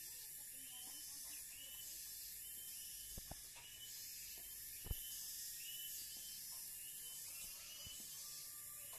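A high, short chirp repeating about twice a second over a steady high hiss. A soft double knock comes a little past three seconds in, and a sharper, louder knock about five seconds in.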